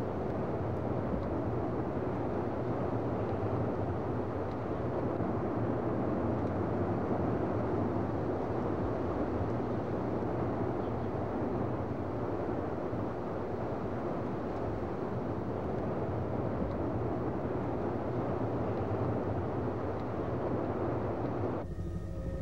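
Steady roar of tornado-force wind buffeting the camcorder microphone, with no separate impacts standing out. It cuts off abruptly just before the end.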